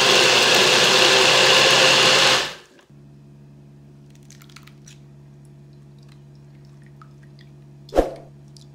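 Small personal blender running at full speed, its inverted jar grinding coriander leaves, coconut and water into a thin green juice; the motor stops about two and a half seconds in. After that only a low steady hum remains, with a single knock near the end.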